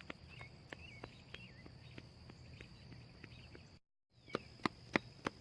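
Faint outdoor ambience: a steady high-pitched insect drone, a few short bird chirps in the first couple of seconds, and a regular series of sharp ticks about three a second. The sound cuts out completely for a moment just before the four-second mark, and the ticks are louder after it.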